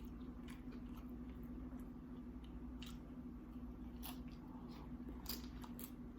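Faint chewing and wet mouth sounds of someone eating seafood nachos, with scattered sharp crunchy clicks from the tortilla chips. A steady low hum sits underneath.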